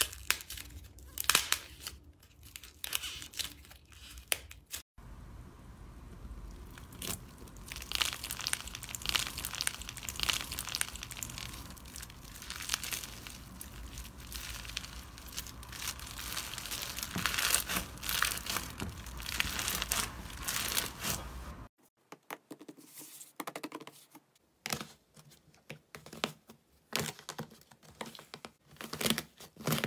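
Slime being pressed, poked and stretched by hand, giving a rapid run of sticky crackling and popping clicks. The background changes abruptly about five seconds in and again near the end, as one clip gives way to the next.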